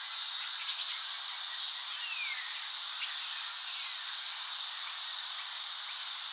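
Steady high-pitched chorus of small calling animals, with scattered faint chirps and a short falling whistle about two seconds in.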